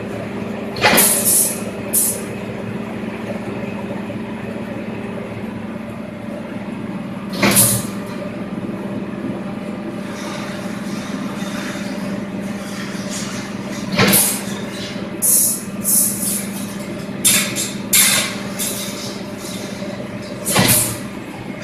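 Steady hum of a fence mesh bending machine (press brake) running. Over it come sharp metallic clanks and rattles of steel welded-wire mesh panels being handled and bent, at irregular intervals, about nine in all and clustered in the second half.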